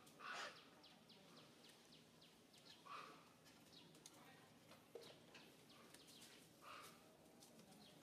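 Faint outdoor ambience of small birds chirping: a steady scatter of quick, high, falling chirps, with a short lower call near the start, another about three seconds in and a third near the end.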